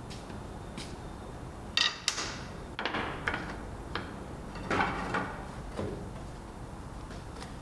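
Oak boards knocking and scraping against one another as they are lifted from a stack and set down, with a cluster of sharp knocks between about two and six seconds in, over a low steady hum.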